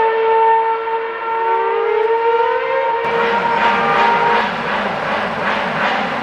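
A 2013 Formula 1 car's 2.4-litre V8 running at high revs on the straight: a steady, high, whining note that rises slightly. About three seconds in, the sound cuts to a rougher engine note that pulses about twice a second.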